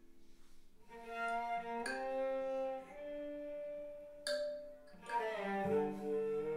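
Background music of bowed strings playing slow, sustained notes that change about once a second.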